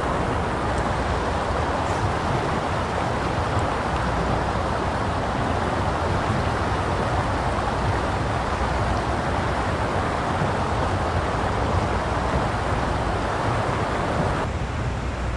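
Steady rushing noise of a creek's running water.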